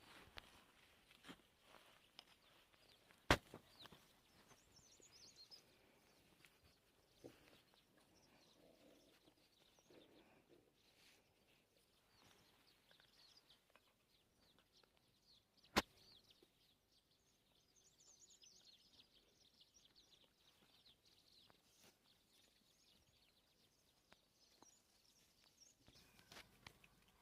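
Near silence: quiet outdoor ambience with faint high chirping and two sharp clicks, about three seconds in and again about sixteen seconds in.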